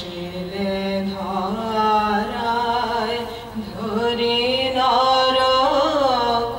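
Men singing a devotional chant to harmonium accompaniment, with long held notes that slide up and down in pitch over a steady drone.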